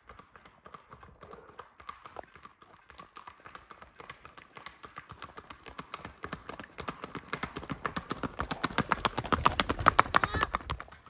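Hooves of a ridden paint gelding clip-clopping on a paved road at a quick, even beat. They grow louder as the horse approaches and are loudest as it passes close by near the end.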